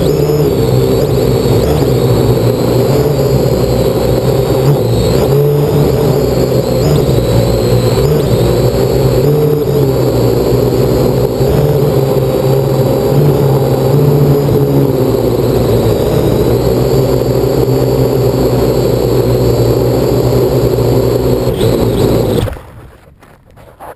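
Parrot AR Drone 2.0's four electric motors and propellers running in flight, a steady whir with a high whine that wavers in pitch as the drone adjusts. Near the end the motors cut out suddenly, leaving only a few faint clicks and rustles.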